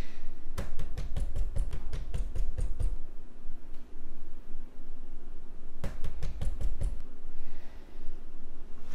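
Knuckles knocking rapidly on a door: a quick run of about a dozen knocks, then a shorter run of about six a few seconds later.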